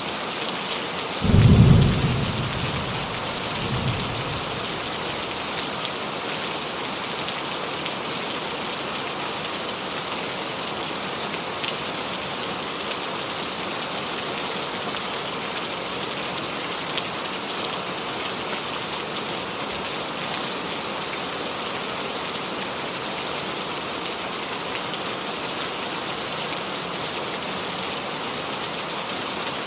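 Steady rain falling on a roof, an even hiss. A short, loud thunderclap comes about a second and a half in, and a fainter rumble follows near four seconds.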